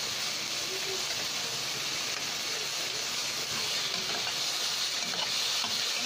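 Okra, garlic, onion and tomato sizzling in hot oil in a pan as they are stirred with a metal spatula; a steady frying hiss.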